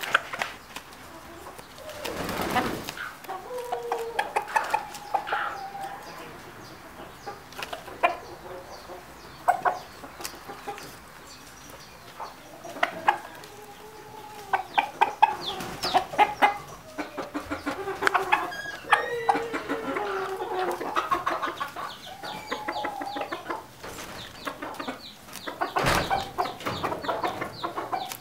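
Domestic poultry calling and clucking with repeated short, wavering notes, mixed with sharp clicks of beaks pecking and tearing at a bunch of kale leaves.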